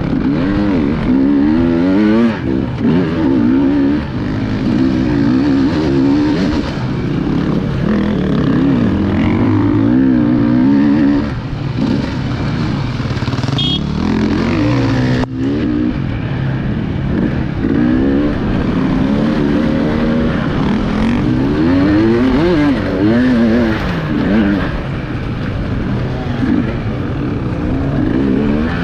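FPV racing drone's electric motors and propellers whining, the pitch jumping up and down several times a second as the throttle is worked.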